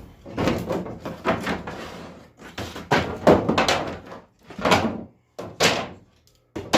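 Wooden floorboards knocking and thudding against each other and the boat's floor as they are handled and set in place: a quick cluster of knocks, then single knocks about a second apart.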